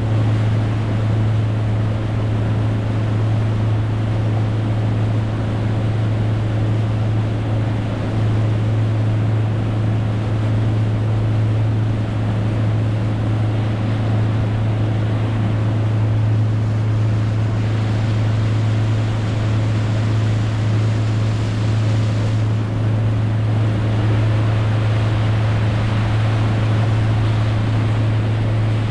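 Boat motor running steadily under way, a constant low drone with a hiss of wind and water over it.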